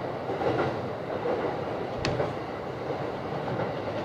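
JR East Saikyo Line electric commuter train running at speed, heard from inside the leading car: steady wheel-and-track noise with a single sharp click about two seconds in.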